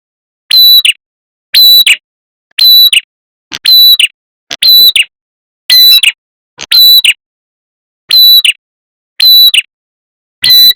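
Recorded lure call of a red-headed prenjak: short sharp calls repeated about once a second, each a bright high note with a quick trill above it, loud enough to clip, with a slightly longer pause about two-thirds of the way through.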